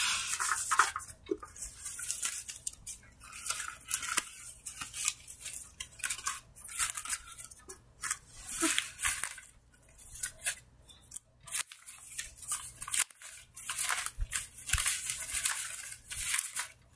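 Scratchy rustling and scraping handling noises in irregular bursts, with short pauses between them.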